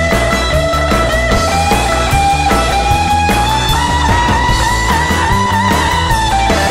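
Instrumental rockabilly twist tune: a lead electric guitar holds long notes that step upward in pitch with a slight vibrato, over drums and bass keeping a steady beat.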